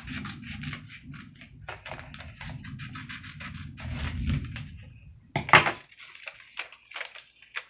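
Paper crinkling and rustling with scissor snips as a folded sheet of lined paper is cut into a heart and handled, over a low rumble that stops about six seconds in. A loud, sharp knock about five and a half seconds in.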